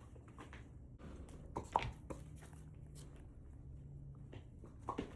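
Chewing: a run of wet chomps that sound like bubble-pop sound effects, the loudest a little under two seconds in and again near the end.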